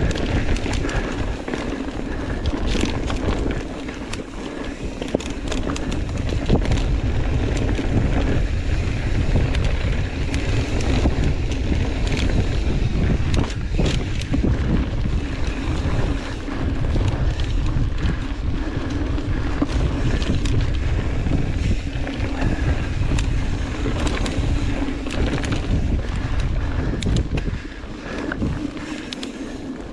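Wind buffeting the microphone on a mountain bike rolling fast down a dirt singletrack, with the tyres on the dirt and many quick rattles and clicks from the bike over rough ground.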